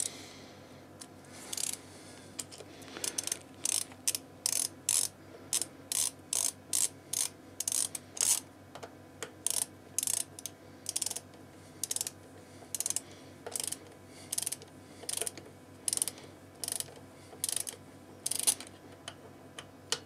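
Socket ratchet wrench clicking in short bursts, about two a second, as its handle is swung back and forth to run in the front axle nut of a BMW R1200 GSA.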